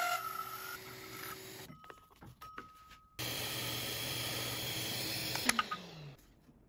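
Drill press running and cutting into a wooden blank, first with a hole saw and then, after a short break, boring with a Forstner bit. Its pitch falls as the motor winds down near the end.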